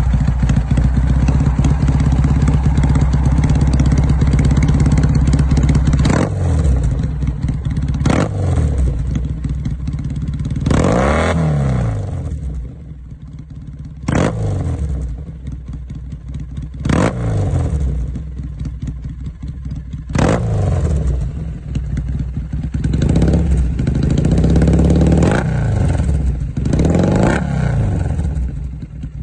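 Triumph Bonneville T100 parallel-twin engine through a D&D titanium full-system race exhaust. It runs steadily at raised revs for about six seconds, then drops to idle between about nine sharp throttle blips, each rising and falling in pitch.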